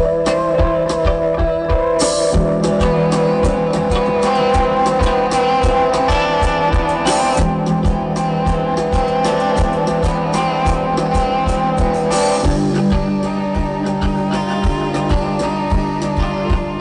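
Live rock band playing: electric guitars over a drum kit's steady beat of about four strokes a second, with crashes about two, seven and twelve seconds in.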